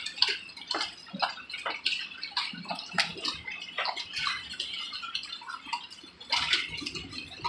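Hail falling: a dense, irregular patter of hailstones striking, heard as many sharp clicks and ticks, several a second, over a steady hiss.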